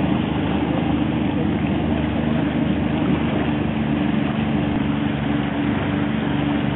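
Boat outboard motor running steadily at speed, with water rushing past the hull.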